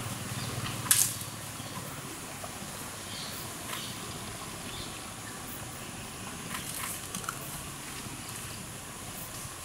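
Vegetation cracking and rustling as a tusker elephant feeds on branches and pushes through brush: one sharp snap about a second in, then a few lighter crackles over a quiet forest background.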